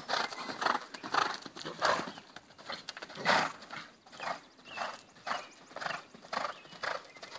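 A horse loping on a dirt round-pen floor: its strides and breaths come in a steady rhythm, about two a second.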